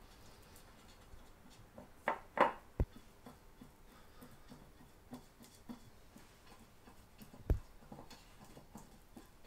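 Buttering a madeleine mold with a pastry brush: scattered light clicks and taps of the brush and mold, with a dull knock about three seconds in and another at about seven and a half seconds.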